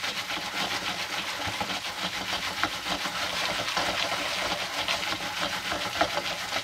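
Oil sizzling and crackling steadily in a Jiffy Pop foil popcorn pan as it is shaken back and forth on a hot stovetop burner, the pan rubbing on the burner. The kernels are still heating and have not begun to pop.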